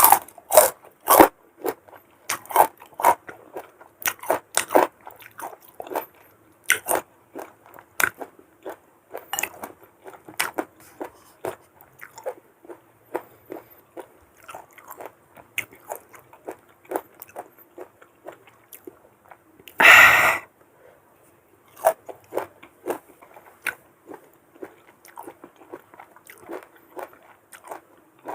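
Crisp bites into raw unripe mango, each a sharp crunch followed by close-up chewing, repeated in quick runs. About two-thirds of the way through comes one longer, louder burst of noise.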